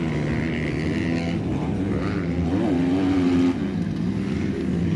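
Motocross motorcycles racing on a dirt track, their engines revving up and down in pitch several times as the riders work the throttle.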